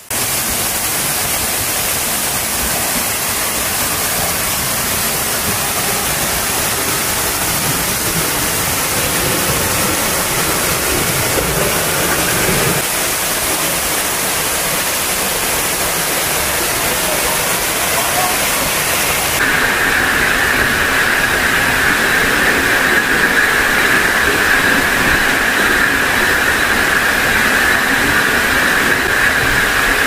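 Mountain-stream waterfall pouring over rock: a loud, steady rush of falling water. Its tone changes abruptly about 13 and 20 seconds in, becoming brighter and hissier after the second change.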